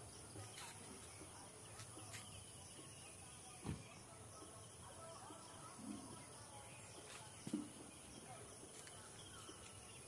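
Faint outdoor garden ambience with distant birds chirping now and then, and two brief knocks, one a little under four seconds in and one about seven and a half seconds in.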